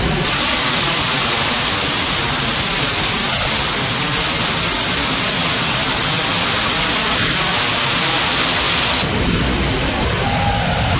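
Loud, steady rush of air and jet engine noise inside a Boeing C-17 Globemaster III's cargo hold with the side paratroop door open. A sharper hiss layered on top starts just after the start and cuts off suddenly about nine seconds in.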